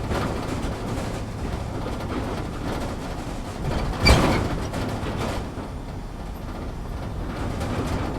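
Off-road vehicle driving over a rough dirt track, heard from inside the cabin: a steady engine hum and rumble with the body rattling over the bumps. About four seconds in there is a hard jolt and bang as it hits a bump, followed by a short burst of rattling.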